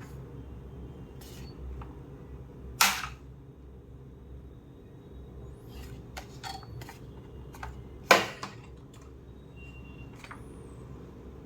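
Parts of a Philips steam iron clicking and snapping as it is taken apart: two loud sharp snaps, about three seconds in and about eight seconds in, with a few lighter clicks between and after, over a steady low hum.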